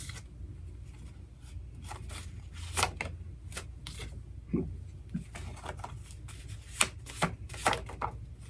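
Oracle cards being shuffled and handled on a table: a string of irregular short snaps and taps of card stock, over a steady low hum.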